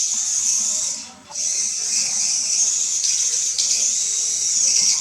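Tiny 1:100 scale Diatone Q25 RC car's electric drive motor and gears whining at a high pitch as it drives fast, cutting out briefly about a second in.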